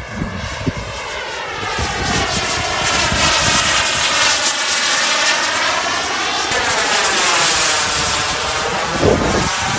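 Radio-controlled J-10 model jet in flight overhead. Its steady whine shifts in tone as it passes, and there is a brief low bump near the end.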